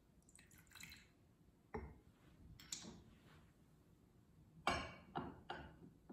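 A brief pour of liquid from a glass cruet into a ceramic chalice at the start, followed by sharp glass clinks as the cruet is set down and its glass stopper handled, the loudest three clinks close together near the end.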